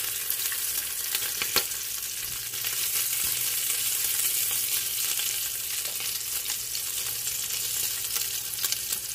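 Bacon sizzling as it pan-sears in the nonstick pot of a Ninja Foodi PossibleCooker Pro: a steady high hiss, with a few faint ticks as the strips are turned.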